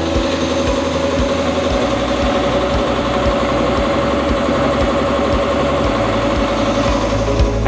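Two-cylinder reciprocating air compressor, belt-driven by an electric motor, running steadily with a constant hum.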